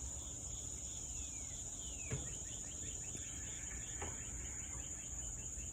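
Steady high-pitched insect chorus of crickets, with bird calls over it: a couple of falling whistles and then a run of quick chirps around the middle. A soft knock about two seconds in.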